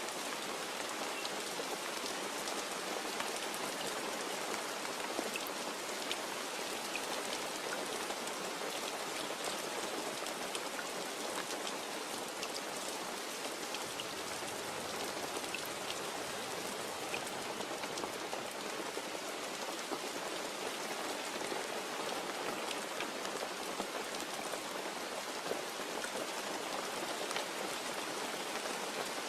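Steady rain falling, a dense even hiss with many small drop ticks on a surface; no thunder.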